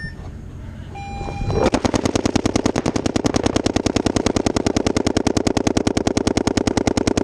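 A short steady tone about a second in, then paintball markers firing a rapid, even stream of shots, about a dozen a second, without a break.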